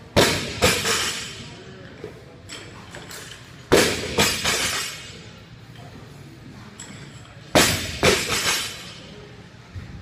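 A loaded 165 lb barbell lands on the gym floor three times, about four seconds apart. Each landing is a loud clank of the weight plates followed by a couple of smaller rattling hits as the bar and plates settle.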